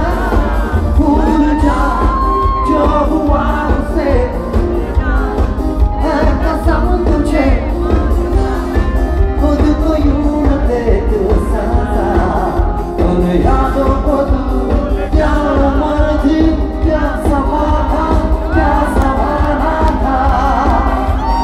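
Live Bollywood pop concert heard from the audience: a male singer on microphone over a band with drums and heavy bass, amplified through the PA in a large hall, with crowd voices and shouts mixed in.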